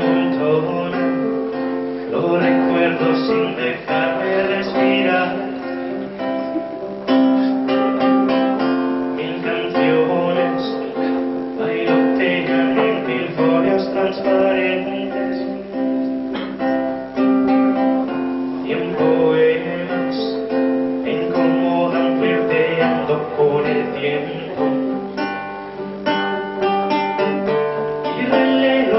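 Nylon-string classical guitar played solo, plucked and strummed in an instrumental interlude between the song's sung lines.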